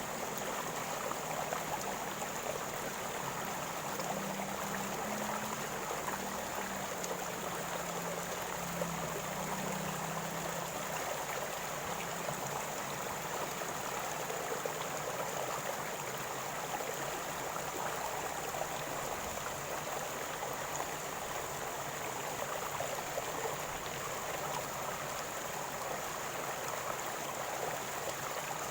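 River water flowing and gurgling over stones, a steady even rush with small splashing detail throughout.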